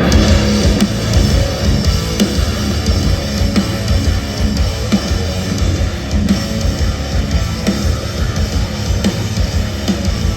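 Heavy metal band playing live: distorted electric guitars over drums with rapid kick-drum beats, loud and dense.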